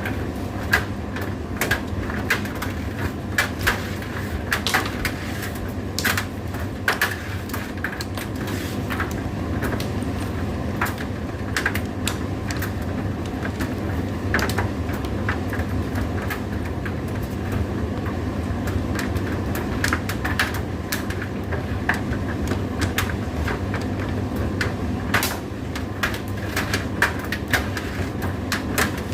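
Indesit IDC8T3 condenser tumble dryer running: a steady motor and drum hum with frequent irregular clicks and knocks.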